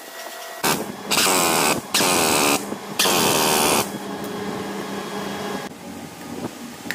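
Three loud bursts of hissing from a workshop tool, each about a second or less, started and stopped abruptly, followed by a quieter steady hum.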